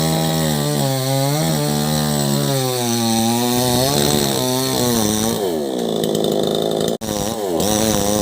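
Chainsaw running under load while cutting wood, its engine pitch dipping and rising as the chain bites. About five seconds in the pitch sags lower, there is a brief break near seven seconds, and then the saw revs up again.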